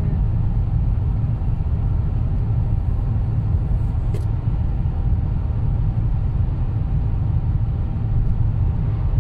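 Steady low rumble of a car's tyres and engine heard from inside the cabin while driving at highway speed, with one faint click about four seconds in.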